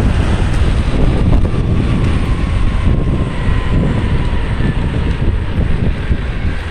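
Heavy wind rushing over the microphone while riding a Wowgo AT2 electric skateboard at speed. A faint high whine glides slowly down in pitch midway.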